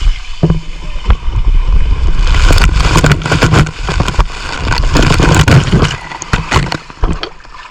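Water rushing and splashing around a rider going down a water slide, with a heavy rumble and repeated knocks as the camera is buffeted. It starts suddenly and eases off near the end.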